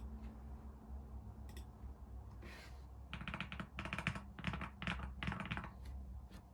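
Typing on a MonsGeek FUN60 Ultra keyboard with Gateron Magnetic Jade Pro magnetic switches, modded with EVA foam, tape and cotton: a few scattered key presses, then quick clusters of keystrokes from about three seconds in, with a slightly clacky rather than creamy sound.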